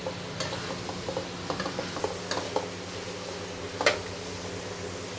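Metal spatula scraping and clanking against a wok while chicken with pickled mustard greens and chilies is stir-fried, over a steady sizzle and a low hum. One sharper clank stands out about four seconds in.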